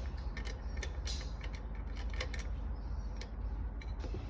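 Clicks, light scrapes and creaks of small chainsaw parts being handled and refitted after a piece fell out, irregular and scattered, over a steady low hum.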